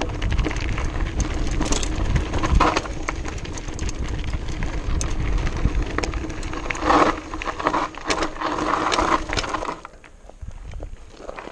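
Mountain bike rolling fast down a loose gravel track: tyres crunching over stones, the bike rattling and clicking over the bumps, and wind rumbling on the helmet or chest camera. About seven seconds in come several louder harsh scraping bursts, and near the end the noise drops as the ride quietens.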